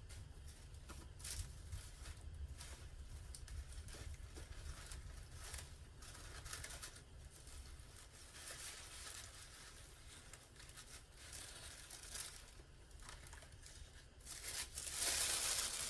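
Soft paper rustling as a card and its ribbon are handled. Near the end it turns into louder crinkling of tissue paper being folded back.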